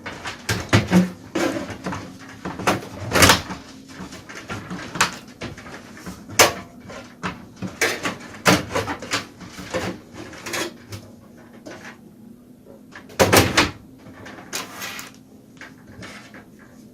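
Irregular knocks and clatter, a few louder than the rest, over a faint steady hum.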